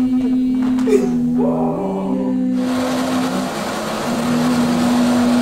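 Stage music: a steady low drone with a wavering, voice-like melodic line above it. About two and a half seconds in, a loud even wash of hiss-like noise joins the drone and holds.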